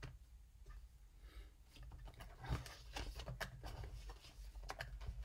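Fingers flicking through a packed stack of paper index cards in a wooden card box: faint, quick paper ticks and rustles, thickest past the middle and again near the end.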